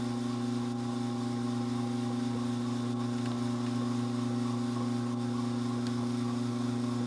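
Strauch Mad Batt'r electric drum carder running while carding dog hair, its motor giving a steady hum made of several even tones.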